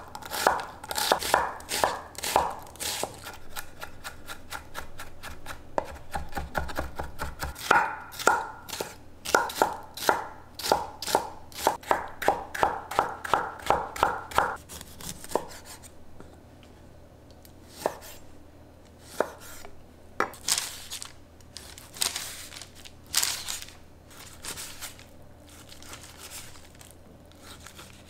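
Chef's knife chopping onion, tomato and raw chicken breast on a wooden cutting board. The blade knocks the board in a quick, regular run of about two strikes a second for the first half, then in fewer, spaced-out cuts.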